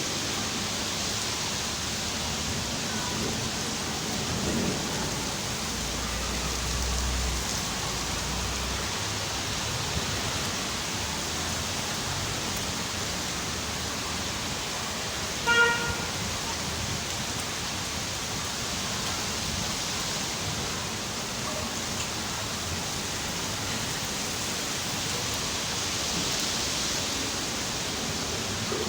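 Steady rainfall, an even hiss of falling rain. About halfway through, a brief horn toot sounds once.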